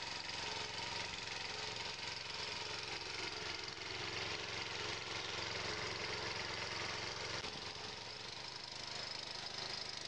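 Walk-behind tractor engine running steadily as its fan-type potato digger drags through the soil.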